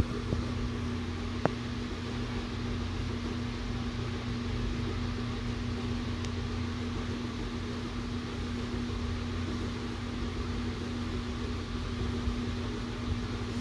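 A big electric fan running steadily: an even whir with a constant hum under it. A single small click sounds about a second and a half in.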